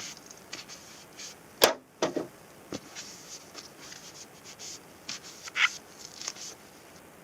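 A fork being wet-sanded with waterproof sandpaper: short, irregular scratchy rubbing strokes. A sharp click about a second and a half in is the loudest sound, followed by a couple of duller knocks.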